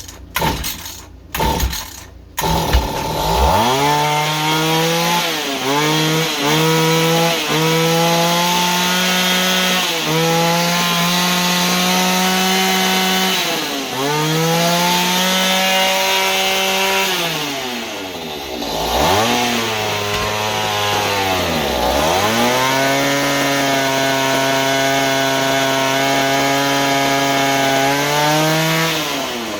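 Mantis mini tiller engine sputtering a few times, then catching and running unevenly: its speed hunts up and down and sags nearly to a stall several times. It will not hold a steady idle while the carburetor adjusting screw is being set.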